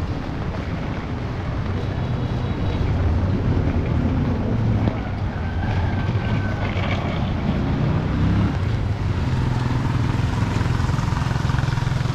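Motor vehicle engine running close by, a steady low drone over street noise.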